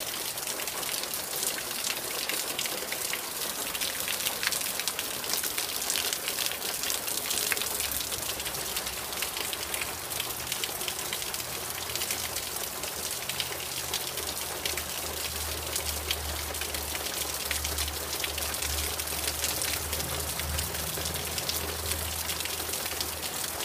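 Heavy rain falling steadily, a dense hiss with many individual drops ticking close by. A low steady rumble joins underneath about a third of the way in.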